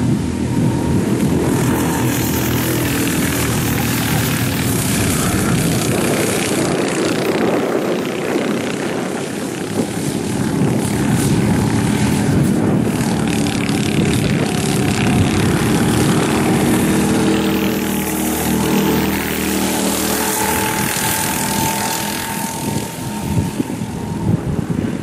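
Rental racing karts' small petrol engines buzzing as they lap past, their pitch rising and falling as the drivers ease off and accelerate through the corners.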